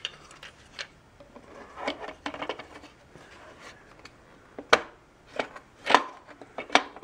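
Hard plastic parts of a Bissell compact upright vacuum knocking, clicking and rubbing as a black plastic part is fitted into the base by hand, with three sharp snaps in the last two seconds.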